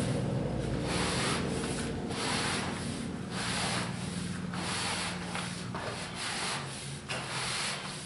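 New rubber bottom weather seal of a steel sectional garage door being pulled through its soaped retainer: a rubbing, sliding sound in repeated strokes, about one to two a second, as the strip is worked along.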